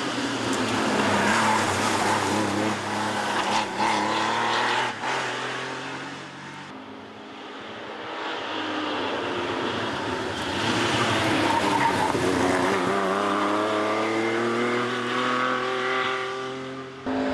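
Rally cars driven hard past the camera: first a Porsche 911's air-cooled flat-six revving as it goes by, then after a cut a Porsche 914 accelerating up the road, its engine pitch rising in steps as it shifts up.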